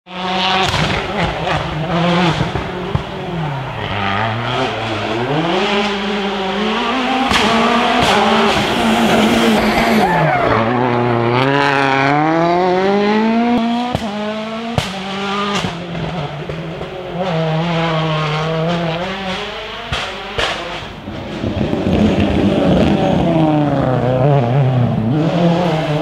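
Turbocharged four-cylinder World Rally Cars driven hard through bends. The engine pitch climbs through the gears and drops on braking and downshifts, again and again, with scattered sharp pops from the exhaust.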